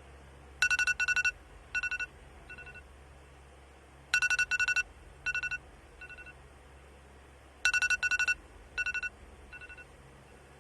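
Electronic alarm beeping: clusters of rapid, high-pitched beeps in a repeating pattern that starts over about every three and a half seconds, three times.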